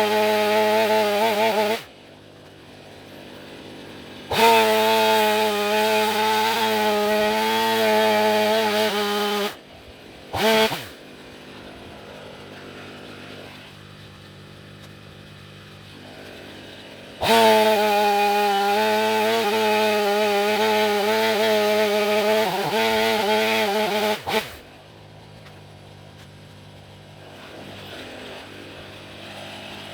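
Stihl MS500i fuel-injected two-stroke chainsaw with a 36-inch bar, cutting into the trunk of a dead tree: three long full-throttle runs, each dropping back to a low idle, with a quick blip of the throttle about ten seconds in.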